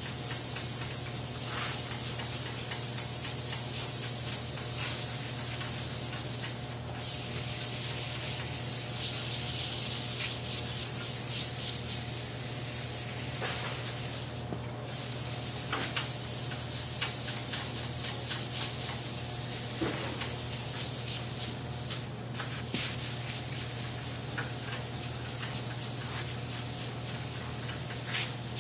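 Electric power sander running and sanding a wood surface coated with dried wood conditioner, knocking down the raised, high spots. A steady sanding hiss over the motor's hum, broken off briefly three times.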